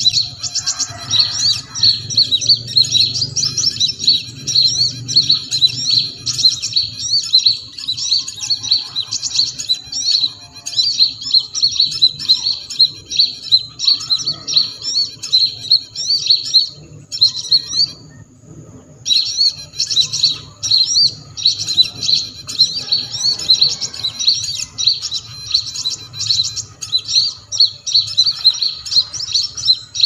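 Electronic small-bird lure call played through a loudspeaker: a dense, continuous rapid chirping and twittering of small birds, used to draw birds onto sticky lime twigs. It cuts out abruptly for about a second and a half a little past the middle, then starts again.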